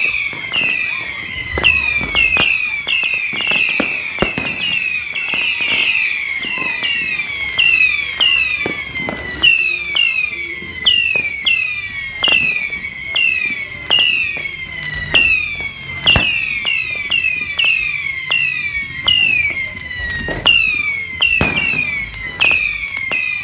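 Whistling fireworks fired one after another from a tube on the ground, about two a second: each a short whistle falling in pitch, with sharp pops among them.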